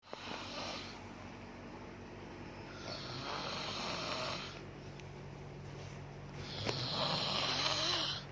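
A woman snoring in her sleep: three loud snoring breaths, each about a second or more long, coming every three and a half seconds or so.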